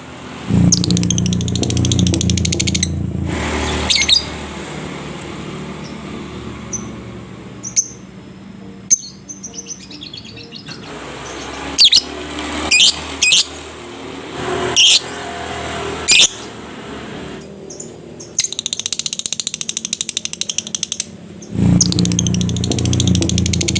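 Lovebird calling: long, very fast chattering trills (the 'ngekek panjang') about half a second in and again in the last few seconds, with sharp chirps that slide down in pitch in between.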